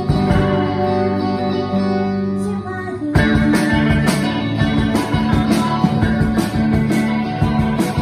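Live rock band playing: held, ringing guitar notes, then about three seconds in the drums and the full band come in louder with a steady beat.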